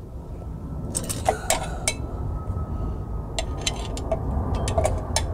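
Steel pliers clinking and clicking against a drum-brake shoe and its parking-brake lever as the lever is worked at: a few short sharp clinks about a second in, then a quicker run of them in the second half. The lever is seized tight in the shoe, perhaps from rust buildup.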